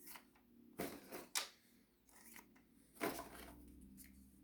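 Plastic clicks and knocks from a Nerf Elite 2.0 Commander blaster's rotating dart drum being turned by finger and loaded with foam darts. The clicks are irregular, with the loudest about a second in and again near three seconds.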